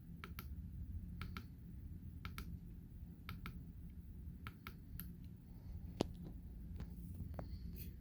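A series of small, sharp clicks, mostly in close pairs about a second apart, with one sharper click about six seconds in, over a steady low hum.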